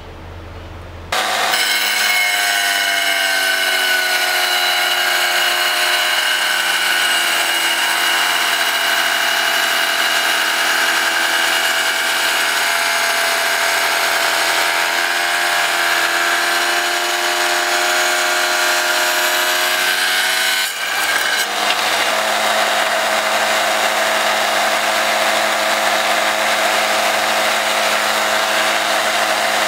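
Wet tile saw with a diamond blade starting up about a second in and running steadily as it slices through a rock of silver and nickeline ore, its whine bending slightly under the load of the cut. About 21 seconds in the sound dips briefly and then turns rougher and grittier.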